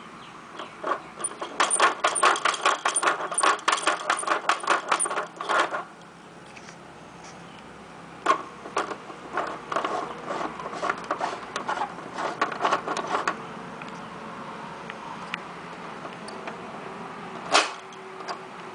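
A plastic children's pop-up activity toy being worked by hand: two runs of rapid clicking and rattling as its buttons and twist dial are operated, then one sharp loud click near the end as a button is pressed.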